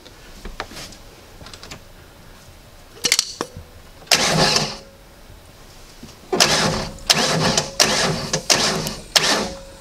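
Starter motor of an Indmar 351 Ford marine V8 bumped in short bursts, each cranking the engine only part of a turn, to inch the distributor rotor onto the number-one cylinder mark and the timing pointer onto the timing mark. There is one short bump, a longer one about four seconds in, then five quick bumps over the last three seconds.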